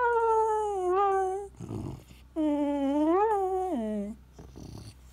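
A terrier whining for attention once the petting stops: two long, high whines, the first sliding slowly down in pitch, the second rising and falling and dropping low at its end, with a short breath between them.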